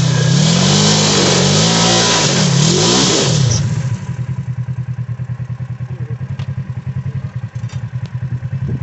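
Polaris RZR side-by-side engine revving hard, rising and falling in pitch, while its tyres spin in loose dirt with a loud hiss of spraying dirt. About four seconds in, the revving and the hiss stop suddenly and the engine drops back to a steady pulsing idle.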